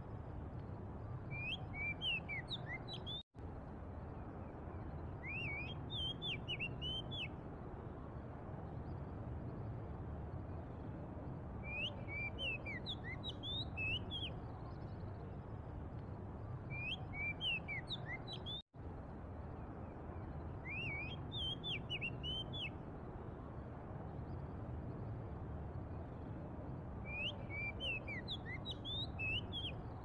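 Oriental magpie-robin singing: short phrases of varied whistled notes sliding up and down, repeated every few seconds over a steady low background rumble. The sound cuts out for an instant twice, about 3 seconds in and again about 19 seconds in.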